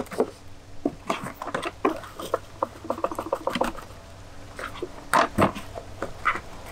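Damp fishing groundbait being rubbed and sifted by hand through a mesh riddle into a plastic bowl: irregular scratchy rustling and pattering, with a couple of louder knocks about five seconds in.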